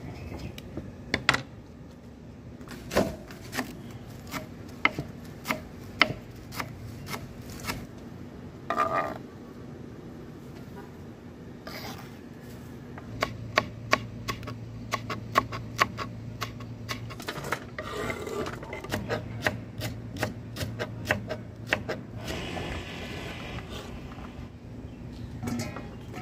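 A kitchen knife chopping on a wooden cutting board, slicing long green chilies: sharp knocks, spaced out at first, then quick runs of strokes in the middle stretch. A steady low hum sits underneath.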